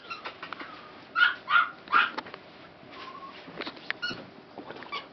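Siberian husky puppies calling: three loud, short, high-pitched calls in quick succession about a second in, then fainter short calls, with scattered light clicks.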